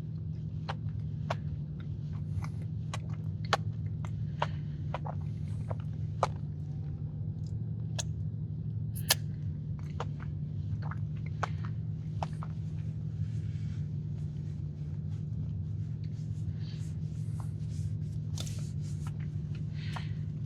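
A person chewing a chilled cookie, with small sharp mouth clicks and smacks scattered about once a second, over a steady low hum.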